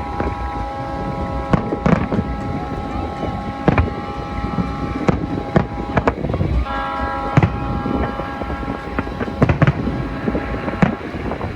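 Fireworks going off: about ten scattered sharp bangs over a steady rumble. Through much of it a steady tone of several pitches sounds, dropping out about five seconds in and returning briefly.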